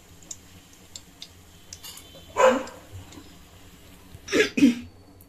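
A dog barking: one bark about two and a half seconds in, then two quick barks near the end.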